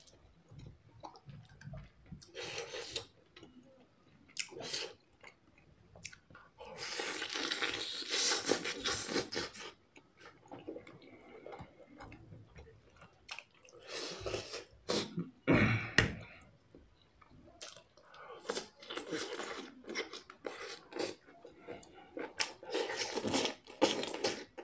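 Close-up mouth sounds of eating spicy instant noodles and chicken: irregular chewing and slurping, with a longer stretch about seven seconds in. There are crunchy bites near the end as raw vegetable slices are eaten.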